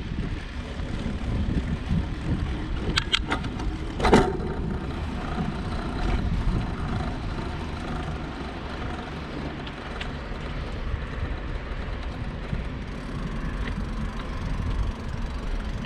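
Riding noise from a bicycle on the road: a steady low rumble. There are a few sharp clicks about three seconds in, and a louder clack about a second later.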